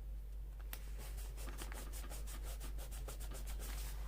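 Brisk rubbing strokes on paper, about eight a second, beginning after a single click about three-quarters of a second in and stopping near the end.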